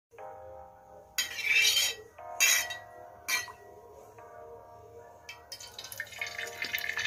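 Metal spoon clattering and scraping in an aluminium pan of hot oil in a few short loud bursts, then eggs tipped in and a steady frying sizzle building near the end. Soft background music underneath.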